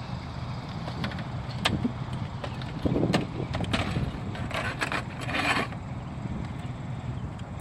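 Manual wheelchair being taken apart: sharp clicks and a spell of metal clatter and scraping about halfway through as the rear wheels come off and are stacked on the frame. A steady low rumble runs underneath.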